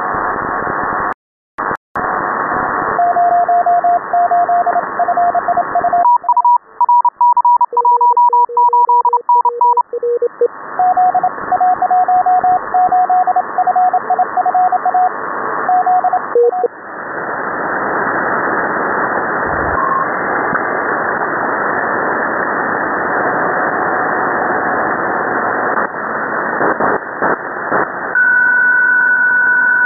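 Shortwave receiver audio in upper sideband: Morse code (CW) signals on the 20 m amateur band, several keyed tones at different pitches beeping over static hiss. The hiss briefly cuts out twice near the start. Near the end, after retuning to 14.070 MHz, two steady digital-mode tones come in.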